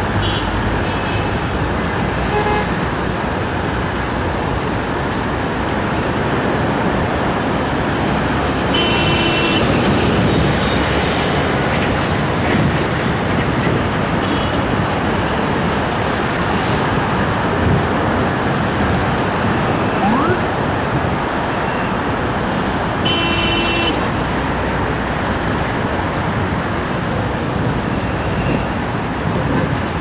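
Busy city street traffic: a dense, steady wash of engine and tyre noise. Two short car-horn honks come through about a third of the way in and again near three-quarters.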